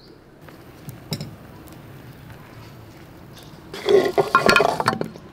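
Raw yak meat chunks tipped from a bowl into an empty metal pressure cooker, landing with a dense run of wet thuds and clatter against the pot for about a second near the end. A single sharp knock comes about a second in.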